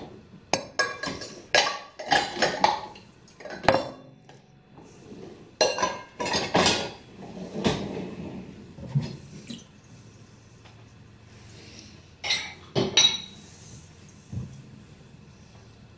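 Dishes and silverware clinking and clattering as they are handled and set down at the kitchen sink. There are quick runs of knocks through the first half, then a lull, then a few more clinks near the end.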